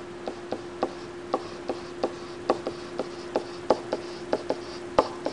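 Stylus tapping and clicking against a tablet surface while handwriting, an irregular run of short sharp clicks a few times a second, over a faint steady hum.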